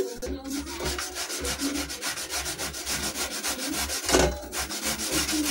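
Potato being grated on a stainless steel box grater: quick, even rasping strokes as it is rubbed up and down the blades, a little louder just past four seconds.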